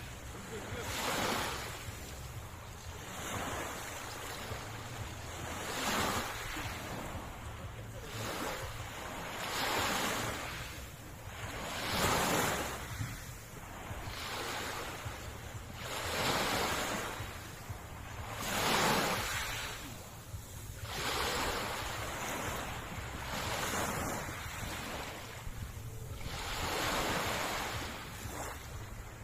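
Sea waves washing onto the shore, each wave swelling and fading every few seconds, over a steady low rumble of wind on the microphone.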